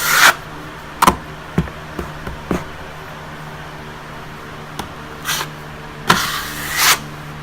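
Drywall trowel scraping joint compound onto a wall patch in a few short strokes, with a few sharp taps early on, over a steady low hum.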